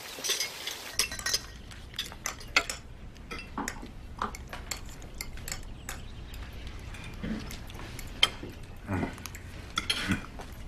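Knives and forks clinking against plates as several people eat a meal, a scatter of light, irregular clinks.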